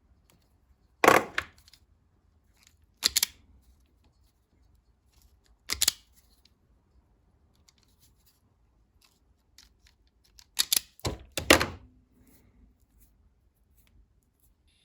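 Sharp clicks and knocks of hand tools being handled at a workbench during a wiring repair. There are single ones about a second in, at three seconds and at six seconds, then two close together near eleven seconds.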